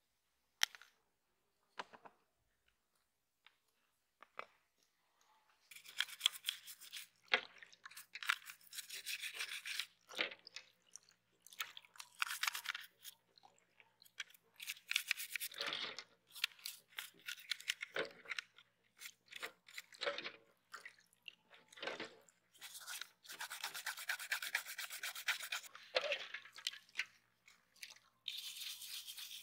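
A toothbrush scrubbing the plastic body and chassis of a toy model car in soapy water, in repeated runs of strokes with short pauses and a few dull knocks of the part being handled. A few faint clicks of a small metal tool on the plastic come first.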